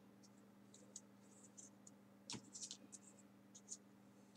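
Faint rustling and scratching of small folded paper 3D origami units being handled and slid into place, with a cluster of sharper paper scrapes a little past two seconds in, over a steady low hum.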